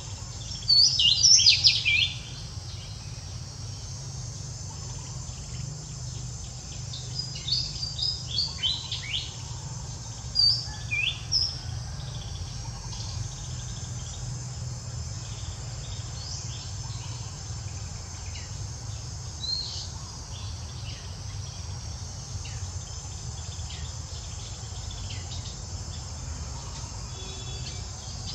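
Steady buzzing of insects with bursts of short high chirping calls. The loudest cluster comes about a second in and a run of them around the middle, then fainter scattered chirps.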